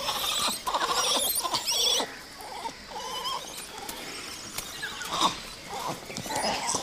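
Langur monkeys calling: loud warbling squeals through the first two seconds, then quieter, with several short cries from about four and a half seconds on.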